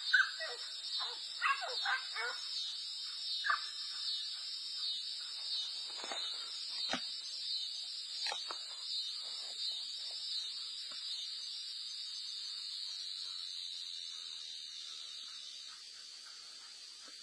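Dogs yelping and barking in short bursts during the first few seconds of a fight. Under them is a steady high-pitched buzzing hiss that goes on after the dogs stop and slowly fades, with a single thump about seven seconds in.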